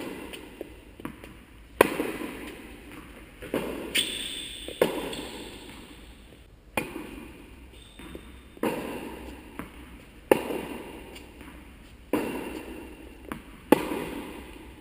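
Tennis ball struck by a racket and bouncing on a hard indoor court in a steady rally, about ten sharp knocks one to two seconds apart, the loudest being the near racket hits. Each knock rings out in a long echo off the metal hall.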